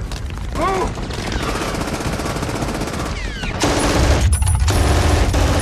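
Battle gunfire: dense rifle and machine-gun fire with short whines of bullets passing and ricocheting. From about two-thirds in it gets louder, as a German MG42 machine gun fires a fast, continuous burst.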